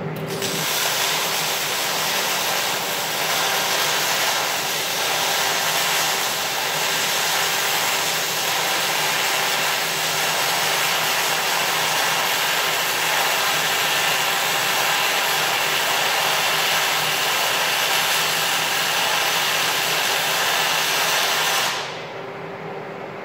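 MIG welding arc running a continuous bead on a steel I-beam: a loud, steady hiss that starts just after the beginning and cuts off sharply about a second before the end.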